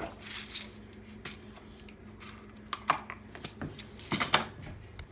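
Scattered light clicks and taps of things being handled on a kitchen counter, the loudest cluster a little after four seconds, over a steady low hum.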